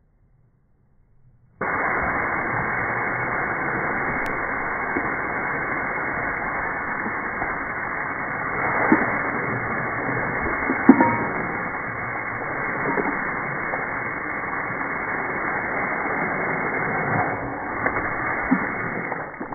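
Water jetting from a garden hose spray nozzle, slowed down by slow-motion playback into a deep, muffled, steady rush, with a few short louder bumps around the middle. It starts about a second and a half in.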